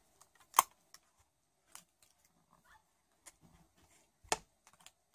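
Hands handling crocheted yarn doll hair and a rubber band: faint rustling, with two sharp clicks about half a second in and near the end.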